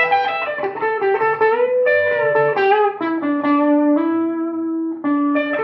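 Gibson Les Paul played through a Marshall JCM800 Studio 20-watt valve head and 2x12 cabinet with the preamp cranked: an overdriven single-note lead line with the bitey Marshall tone, heard through a lapel mic in the room. A note is bent up about two seconds in, then long notes are held lower down, with a quicker phrase near the end.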